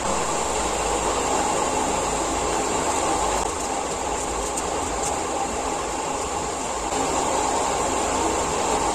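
Steady rushing background noise, even and unbroken throughout.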